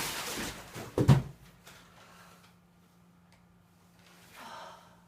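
A harsh cough, then a short thump about a second in. After that only a faint steady hum remains.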